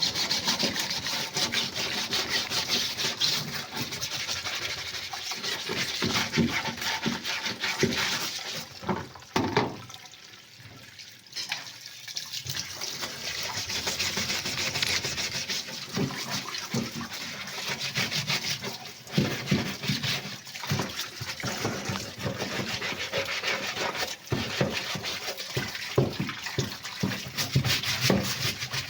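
Stiff brush scrubbing caked mud off a washing-machine tub part with water, in quick repeated strokes, with a short pause about ten seconds in.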